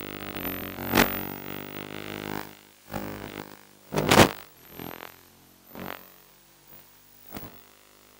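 Remote-control tank's drive motors humming steadily, then cutting out after about two seconds. Several short bursts and sharp knocks follow, the loudest about four seconds in.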